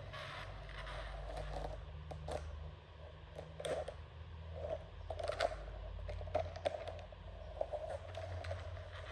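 Small electric motor of a remote-control toy vehicle running steadily, with scattered clicks and scrapes as the toys move and knock.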